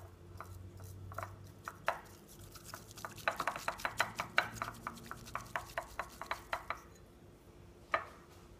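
Bamboo matcha whisk (chasen) brushed rapidly back and forth in a ceramic bowl, its tines ticking and scraping against the bowl's sides in quick strokes as matcha powder and a little water are worked into a smooth mix. The strokes come thickest in the middle, with one louder tap near the end.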